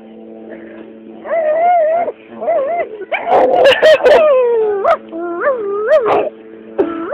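A dog yelping and howling in a string of short cries that rise and fall in pitch, loudest and roughest about three to four seconds in.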